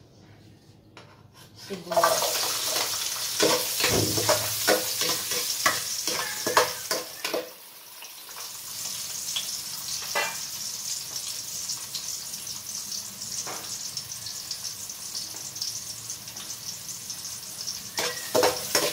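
Chopped red onion dropped into hot cooking oil in an aluminium pot starts sizzling about two seconds in, loud at first with pops and crackles. It then settles into a steady frying sizzle, and a spatula stirs it near the end.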